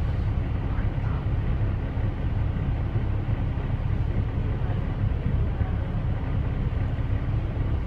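Double-decker bus's diesel engine idling with a steady low hum while the bus stands still, heard from inside the upper deck.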